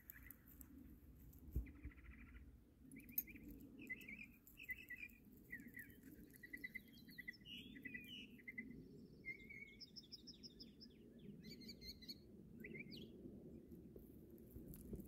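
Northern mockingbird singing faintly: a string of varied phrases, each a quick run of the same chirp or note repeated several times before switching to a different one, in the species' mimicking style. A low steady rumble lies underneath.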